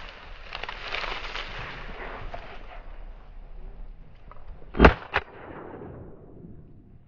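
A Beretta A300 Outlander semi-automatic shotgun fired at a teal in flight: one loud shot about five seconds in, followed closely by a second, quieter crack. A rustling noise comes before the shot.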